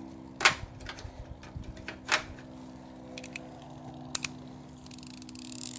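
Hand tools clinking and knocking against metal engine parts, a few sharp clinks some seconds apart with the loudest about half a second in, over a steady low hum. A short scratchy rustle comes near the end.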